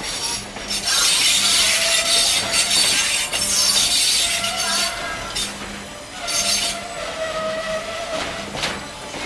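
Railcar brakes squealing and screeching as the train rolls: a loud, harsh screech from about a second in until past the middle, then thinner steady whines with short sharp screeches near the end. The uploader puts the racket down to brakes that need lubricating.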